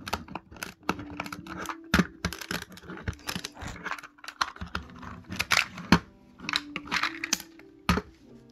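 Plastic LEGO bricks and Technic parts being handled and pressed together: an irregular run of sharp plastic clicks and taps.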